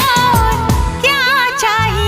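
Bollywood-style background song: a voice singing a wavering melody over a drum beat.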